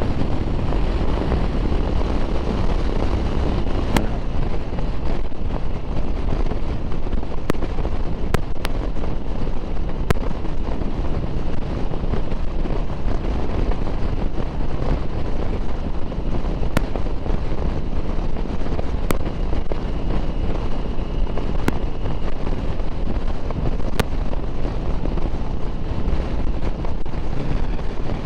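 Steady wind rush buffeting the microphone while a 2009 Harley-Davidson Sportster 1200 Low cruises at highway speed in gusty wind, with engine and road noise underneath. A few faint sharp ticks are scattered through it.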